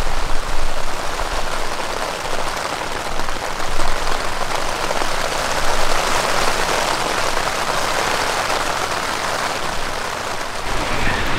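Steady rain falling on a tent's fabric.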